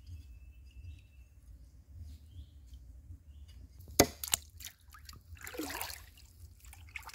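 A cleaver striking once, sharply, against the wooden log about four seconds in, with a smaller knock just after, as a snake is chopped up at the water's edge; a short slosh of water follows. A low rumble runs underneath.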